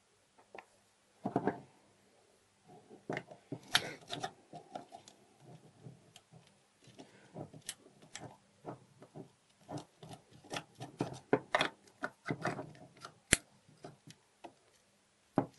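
Metal lock parts being handled on a wooden workbench: irregular clicks, light knocks and short scrapes as a profile lock cylinder is pushed into a steel mortise lock, with one sharp click near the end.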